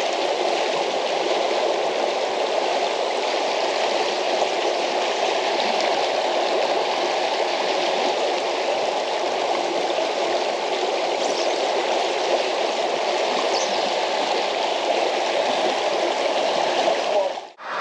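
Fast river riffle rushing over cobbles: a steady, loud rush of water, then it cuts off suddenly near the end.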